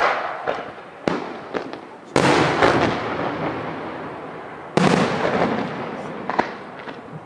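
Aerial firework shells bursting overhead: a sharp bang about a second in, then two heavier booms at about two seconds and just under five seconds, each trailing off in a long rolling echo, with smaller cracks in between.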